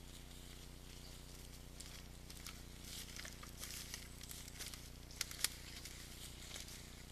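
Faint rustling and crackling steps of a red deer walking through grass and undergrowth close to the camera, with two sharper clicks about five seconds in, over a steady low hum.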